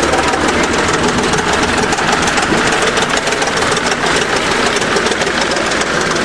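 1953 International TD-20 crawler bulldozer's diesel engine idling steadily, a rapid, even knock of firing strokes.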